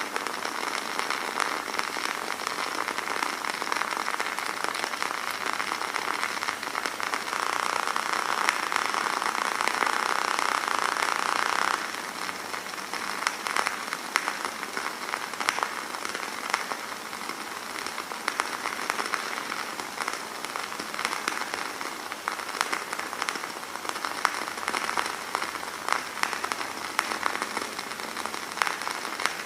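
Burning-flame sound effect: a steady hiss dotted with many small crackles and pops. A louder layer of hiss cuts off suddenly about twelve seconds in.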